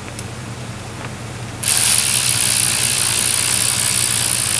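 Power ratchet running in the AC compressor's mounting bolts: a steady, high whirring hiss that starts about a second and a half in and keeps going.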